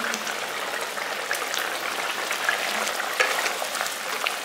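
Thick fish curry gravy bubbling and sizzling in a pan, with many small pops and a wooden spatula stirring through it.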